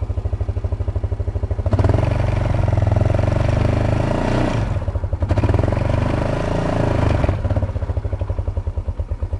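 Four-wheeler (ATV) engine idling, then revving up about two seconds in and running harder for several seconds, easing off briefly in the middle before picking up again, then dropping back to idle near the end.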